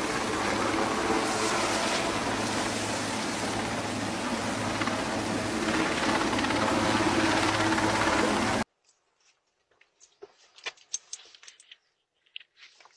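Large military helicopter hovering low overhead: a steady, dense rotor and turbine din mixed with rushing downwash. It cuts off suddenly about nine seconds in, leaving only faint scattered clicks and rustles.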